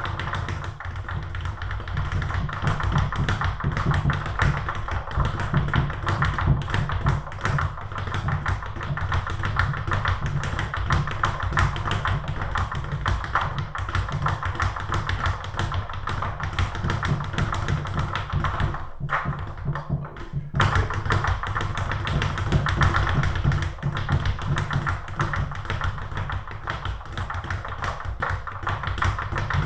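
Speed bag being punched in a fast, continuous rattle of taps off its rebound board, stopping briefly about two-thirds of the way through before picking up again.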